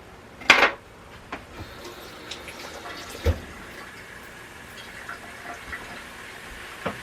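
Kitchen utensil clattering against a pot: a loud scrape about half a second in, a knock about three seconds in, and a few smaller clicks between.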